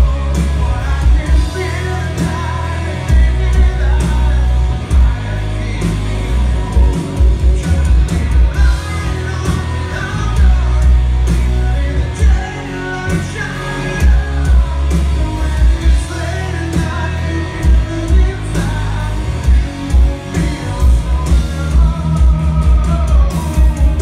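Live rock band playing loud: a sung lead vocal over electric guitars, bass and a drum kit, with a heavy pulsing low end, heard from within the crowd.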